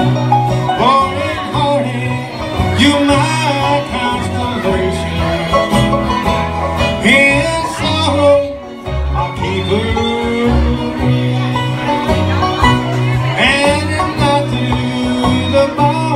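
Live bluegrass band playing, with banjo, acoustic guitars and fiddle.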